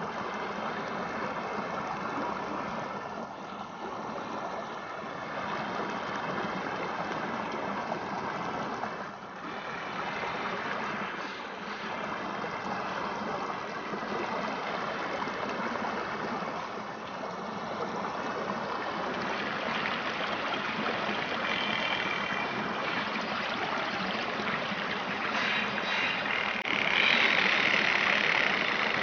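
Rushing, falling water: a steady, even noise that swells a little louder near the end.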